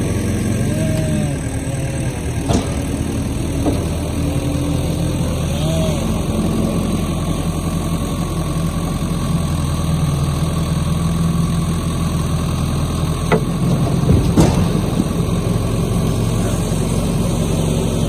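Skid steer engine running steadily while it loads heavy oak blocks into a truck bed, with a few knocks of wood landing; the loudest two come close together about three-quarters of the way through.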